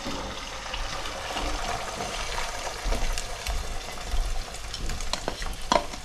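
Beaten egg frying in hot oil in a pan for a Thai omelette: a steady sizzle, with a few sharp utensil clicks near the end.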